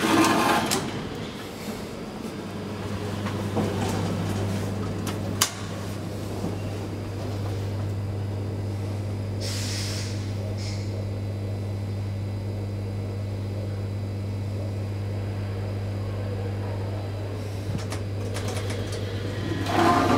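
1974 KONE traction elevator: the car doors slide open at the start, then a steady low electrical hum from the car's machinery runs on, with a single sharp click about five seconds in and more door noise near the end.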